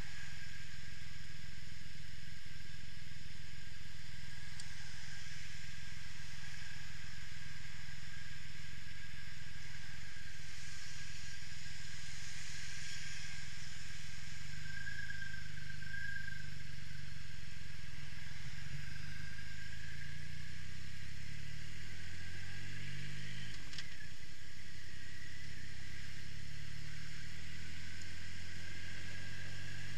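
Triumph Rocket III's three-cylinder engine idling with a low, steady hum, then rising in pitch about twenty-two seconds in as the motorcycle pulls away and accelerates.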